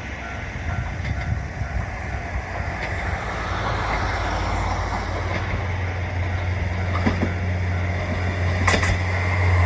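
Diesel railcar engine running with a steady low drone that grows louder, with a few sharp clicks near the end.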